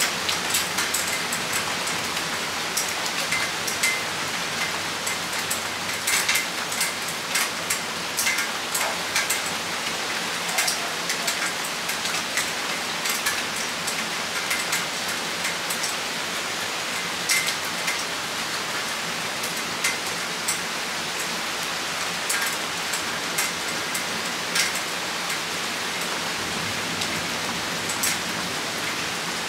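Steady rain shower hissing, with many individual drops striking close by as sharp ticks.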